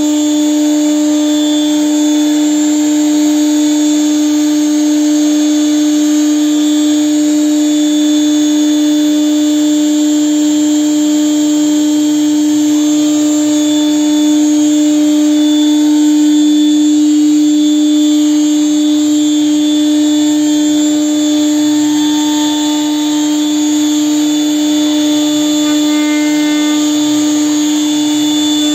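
CNC router spindle motor running with a steady, unchanging whine.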